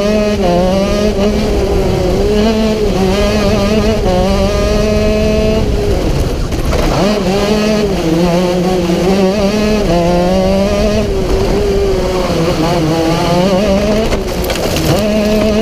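Racing kart engine at full race pace, heard from on board: the revs climb steadily along the straights and drop sharply several times as the kart brakes for corners, then climb again.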